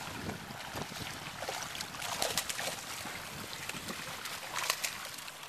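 Water splashing and trickling as herring packed into a hauled-up pound net flip at the surface, with short sharp splashes about two seconds in and again near the end.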